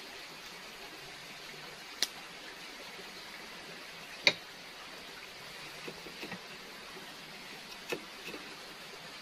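Kitchen knife slicing a raw potato into long strips on a wooden board, the blade knocking sharply on the board a handful of times, loudest about four seconds in. A steady hiss runs underneath.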